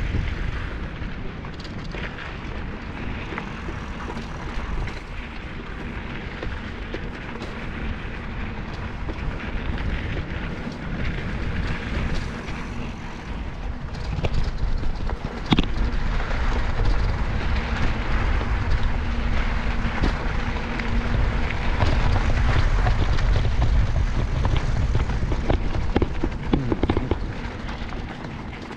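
Wind buffeting the microphone while riding along a dirt track, a rough rumble that rises and falls and grows louder about halfway through, with light crunching clicks from the wheels on the gravel.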